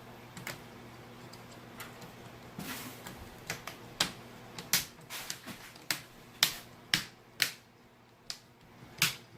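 Plastic screen bezel of a Dell Inspiron 15 5559 laptop being pressed back onto the lid, its retaining clips snapping into place as a series of sharp clicks, about a dozen, irregularly spaced and coming closer together in the middle.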